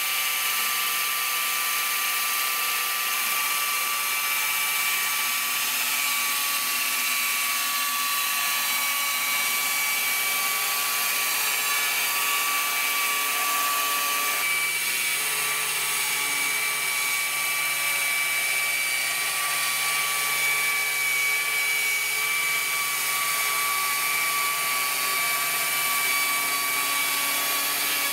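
Electric chainsaw on a Logosol chainsaw sawmill ripping a log lengthwise: the motor runs at a steady, high-pitched whine of constant pitch while the chain cuts through the wood.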